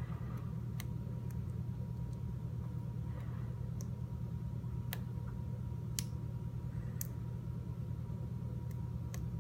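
Small, sharp metallic clicks, scattered a second or so apart, from a lock pick lifting and setting the pin tumblers in an American Lock 1106 padlock, over a steady low hum.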